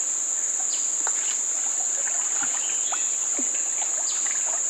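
Insects shrilling in a steady high-pitched drone, with faint scattered drips and light splashes as a gill net is lifted out of a shallow river.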